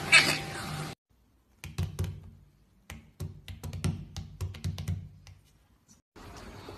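A short loud burst right at the start, then irregular quick light taps and knocks on a tabletop for a few seconds.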